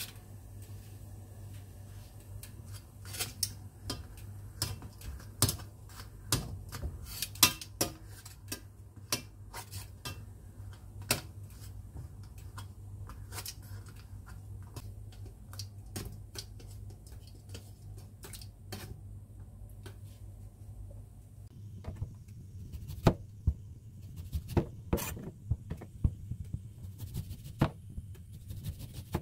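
Metal tongs clicking and scraping against a small pot as a grapefruit is rolled in hot water, over a steady low hum. Near the end, a kitchen knife slices a lemon, each cut ending in a sharp tap on a plastic cutting board.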